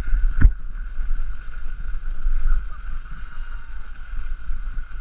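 Wind buffeting the microphone of a camera descending a snow piste at speed, a steady rumble with a constant higher hiss over it, and one sharp knock about half a second in.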